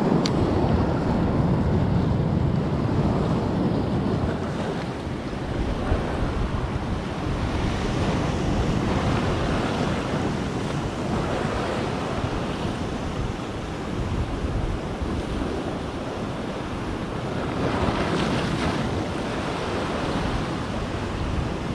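Sea waves washing and breaking on the shore, the noise swelling and easing several times, with wind buffeting the microphone.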